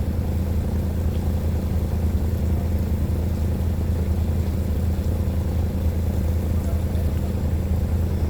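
An engine running steadily under way, a constant low drone without changes in speed.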